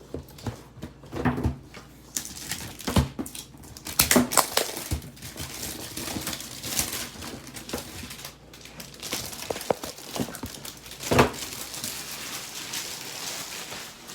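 Cardboard and plastic packaging being handled: irregular rustling with scattered knocks, the loudest about four seconds in and about eleven seconds in.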